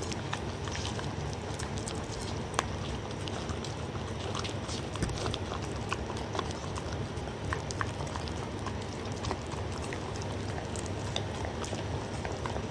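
Dog lapping and licking soup from a ceramic bowl close to the microphone: irregular wet tongue clicks and smacks against the bowl, over a steady low hum.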